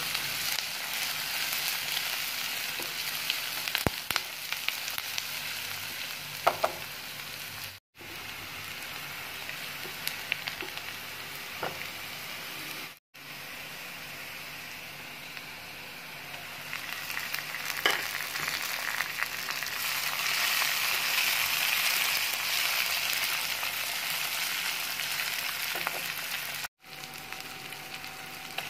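Sliced onions, green chillies and curry leaves sizzling in oil in a nonstick kadai, with the onions frying until golden. A wooden spatula stirs them, giving a few sharp knocks against the pan. The sizzle cuts out abruptly a few times and is loudest in the second half.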